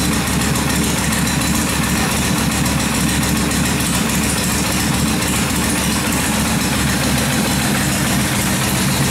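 Freshly rebuilt Kawasaki 1600 V-twin engine idling steadily.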